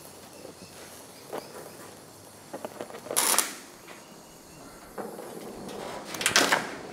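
Car-body metalwork with a gas-welding torch and hand tools: scattered small clicks and clinks, with a short hissing burst about three seconds in and two more near the end.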